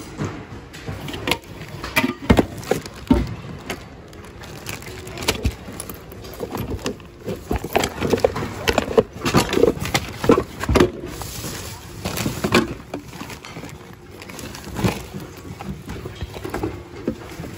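Hard plastic household items clattering and knocking together as hands rummage through a bin of mixed goods, in irregular knocks that come thick and fast.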